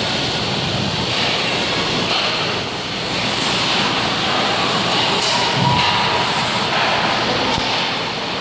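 Sounds of a live ice hockey game: skates scraping the ice and the knock of sticks and puck over a steady rumble, echoing in a large rink hall. A sharp knock comes a little past halfway, followed by a low thud.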